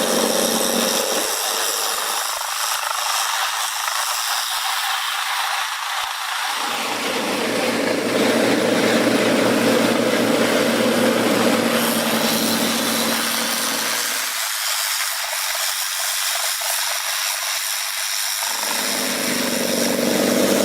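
Heavy wood-processing machinery running and cutting wood: a loud, steady mechanical grinding noise. Twice, for a few seconds each, the deep rumble drops out and the sound turns thin.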